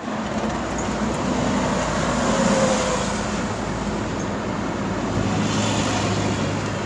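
Steady traffic-like street noise: a dense, even rumble with a low engine hum under it, starting abruptly out of silence.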